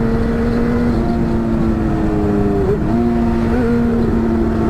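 Honda Hornet's inline-four engine with an aftermarket exhaust running steadily under way, with brief changes in pitch about one second and nearly three seconds in.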